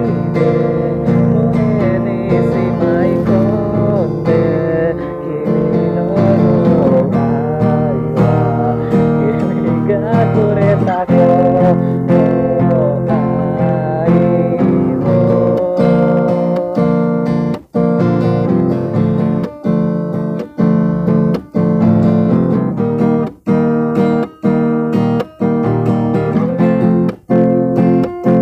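Acoustic guitar being strummed and picked, with a voice singing a wavering melody over the first half. In the second half the strumming stops sharply for a moment several times.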